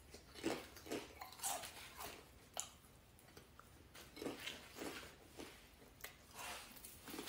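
A person eating crunchy chips: faint, irregular crunches as the chips are bitten and chewed.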